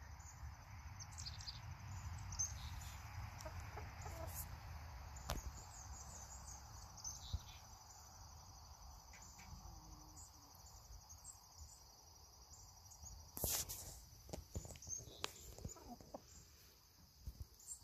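Chickens clucking softly now and then at close range, over a steady high chirring of insects. A few small clicks, and one brief louder noise about 13 seconds in.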